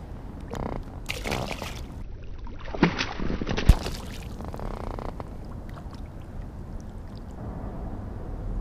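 A largemouth bass thrown back into the lake, hitting the water with a splash beside the inflatable kayak about three and a half seconds in, after a few short handling rustles and knocks.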